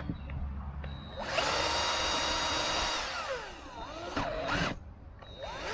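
Cordless drill boring out a sheared bleed screw in a brake caliper. The motor runs at a steady whine from just over a second in, winds down about halfway through, then gives a short burst near the end.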